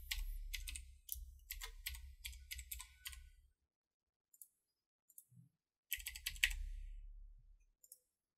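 Computer keyboard typing: a run of quick keystrokes lasting about three and a half seconds, a pause of a couple of seconds, then a shorter run a little after the middle.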